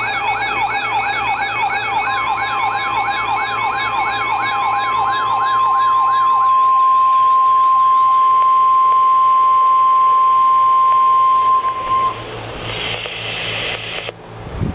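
A siren-like alert sounds in fast rising sweeps, about two or three a second, and fades out about six seconds in. From about two seconds in, the steady NOAA Weather Radio 1050 Hz warning alarm tone overlaps it; this single loud tone holds for about ten seconds and then stops, signalling a warning about to be read.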